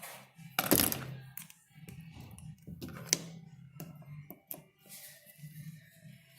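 Small metal parts of a wire stitcher head being handled and fitted by hand: a run of uneven clicks and light clinks, the loudest about a second in and another sharp click about three seconds in.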